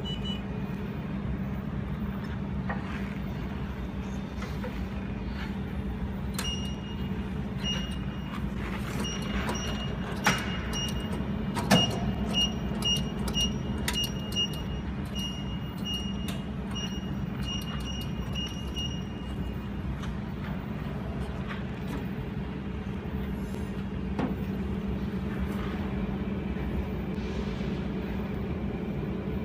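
Desktop jewelry laser welding machine running with a steady low hum. From a few seconds in, a string of short high beeps repeats for about twelve seconds, and two sharp clicks come about a third of the way in.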